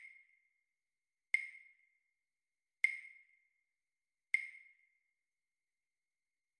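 Metronome count-in clicks at a slow tempo: three short, bright ticks about a second and a half apart, each with a brief ring.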